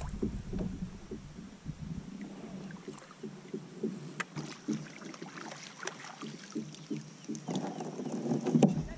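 Scattered light knocks and clicks of fishing gear being handled in a kayak, with a louder rustling stretch near the end as a landing net is lifted.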